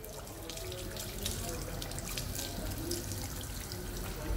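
Water running from a pull-out faucet spray hose over a freshly shaved head and splashing into a sink basin, steady throughout with small splashes.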